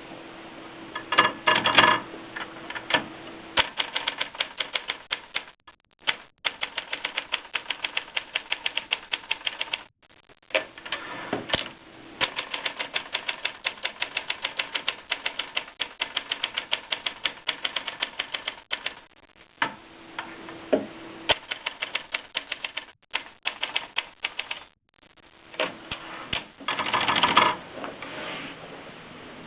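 1950s Olympia typewriter being typed on: runs of quick key strikes, each a sharp clack, broken by short pauses. Two louder, longer clatters, one about two seconds in and one near the end.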